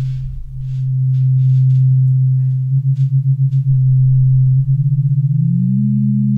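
Synthesized sine-wave tones from FL Studio's 3x Osc plugin, a steady low hum. Around the middle the tone pulses rapidly, then pulses faster a couple of seconds later, and near the end it rises in pitch and splits into two close tones.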